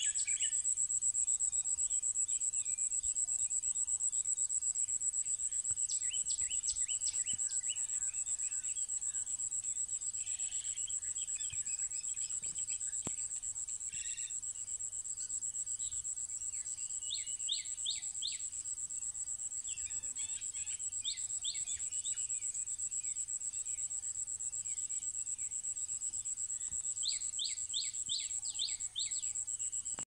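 Steady high-pitched insect trill, like a cricket's, with a bird calling several times in short runs of quick, sharp repeated notes.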